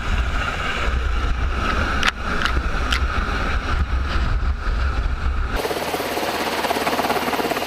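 MH-60S Seahawk helicopter hovering low over water, its rotor downwash buffeting the microphone with a deep rumble and spray noise, with a few sharp clicks about two and three seconds in. About five and a half seconds in the sound changes abruptly to a thinner, hissing rotor-and-spray noise heard from farther off.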